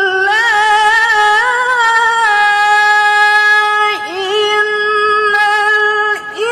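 Woman reciting the Quran in melodic tilawah style: a single high voice with quick wavering ornaments, then long held notes, broken briefly about four seconds in and again near the end.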